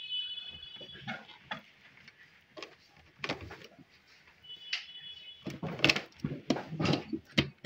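Wires and test leads being handled on a tabletop: scattered clicks, knocks and rattles, busiest near the end. Two short high squeaks come at the start and again about four and a half seconds in.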